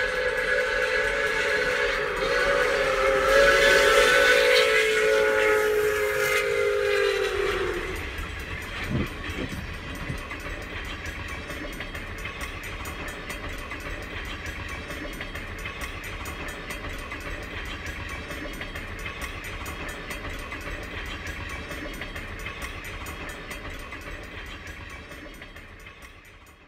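Pere Marquette 1225 2-8-4 Berkshire steam locomotive blowing a long whistle blast of several tones, its pitch sagging as it cuts off about seven seconds in. Then comes the steady rumble of the train running past, which fades away near the end.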